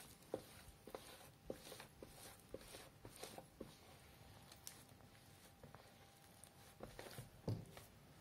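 Faint soft taps, pats and squishes of hands rounding and shaping a soft panettone dough ball on a stainless steel tray, with a louder, duller thump near the end.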